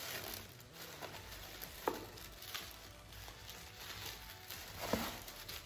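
Tissue paper and a plastic bag rustling and crinkling as a pair of shoes is unwrapped from a cardboard box. There are two light knocks, about two seconds in and near the end.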